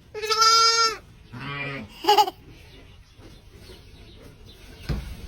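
Car horn honked once, a steady blare of just under a second right at the start. It is followed by short vocal sounds.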